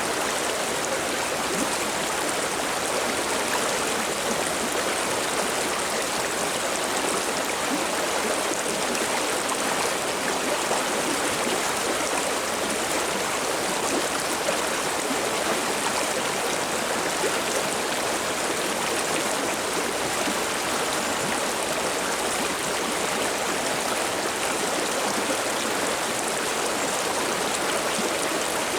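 Mountain river water babbling and rushing in a steady, even flow.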